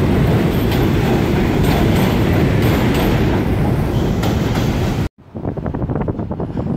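New York City Subway train running through the station on the elevated line: a steady loud rumble with repeated clicks of wheels over rail joints. It cuts off abruptly about five seconds in.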